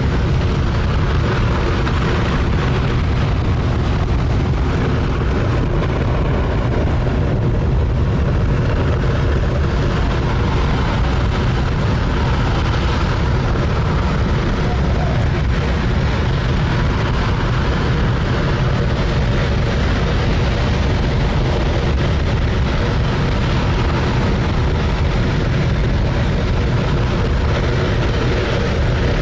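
J-2X hydrogen-oxygen rocket engine firing in a ground test: a loud, steady, unbroken roar.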